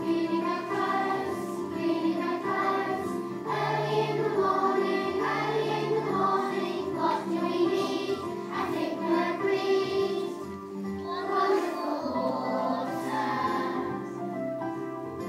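A group of young children, about four or five years old, singing a song together over an instrumental accompaniment.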